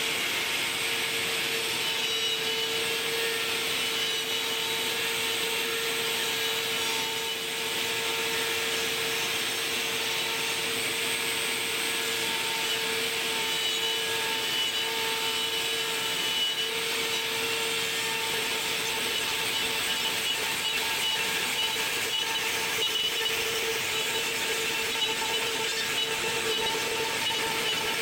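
CNC router spindle running at a steady high whine while the bit cuts through wood, with a continuous hissing cutting noise under the whine.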